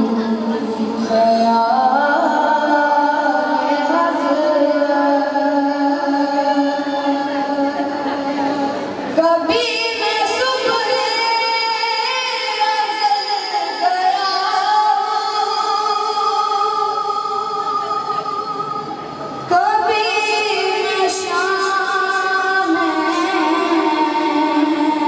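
A boy's solo voice sings a naat, a devotional poem in praise of the Prophet, into a handheld microphone. He holds long notes with ornamented wavering, and new phrases begin about nine and nineteen seconds in.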